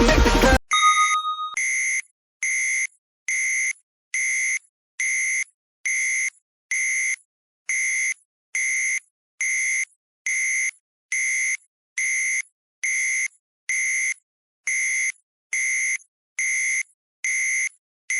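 Electronic countdown-timer alarm of simple beeps sounding as the timer reaches zero: identical short beeps repeat evenly at the same pitch, about one every 0.8 seconds. A background music track cuts off under a second in, followed by a brief ringing tone just before the beeps begin.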